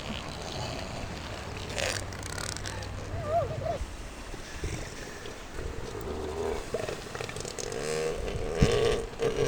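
Elephant seals making several low belching calls.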